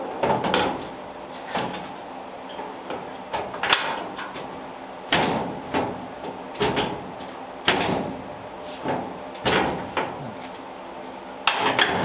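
The steel hood of a 1938 Ford being pressed down and lifted against its hood latch, giving a series of short metal clunks and rattles about once a second as the latch is tried.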